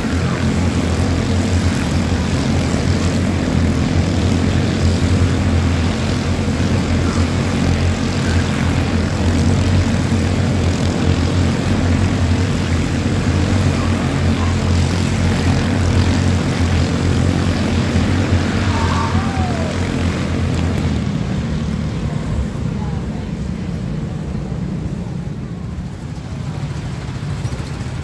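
A pack of quarter-midget race cars with small single-cylinder Honda engines running together at racing speed, a steady drone. About three quarters of the way through it thins and eases a little.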